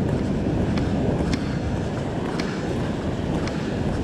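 Wind buffeting the microphone in a steady low rumble, with surf washing against the rock ledge underneath and a few faint, light ticks.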